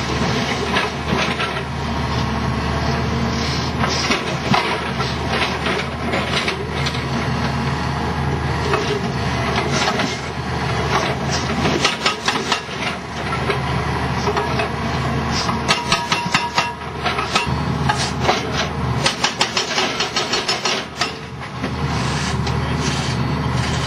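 Hydraulic excavator's diesel engine running steadily under load while its arm breaks up reinforced concrete. Many sharp cracks, knocks and crunches of breaking concrete come thickest in the middle and second half.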